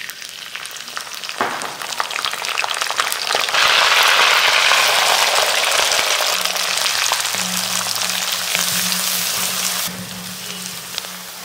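Hot oil sizzling in a cast-iron kadai as curry leaves and chopped onions fry. It gets loud about three and a half seconds in and drops off suddenly near the end, with a wooden spatula stirring.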